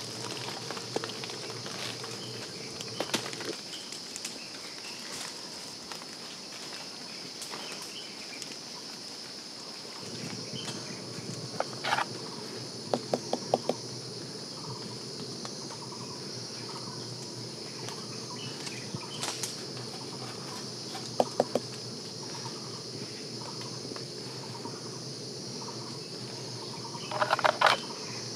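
Steady high-pitched insect drone over a low background hum, broken by a few short sharp sounds, the loudest cluster near the end.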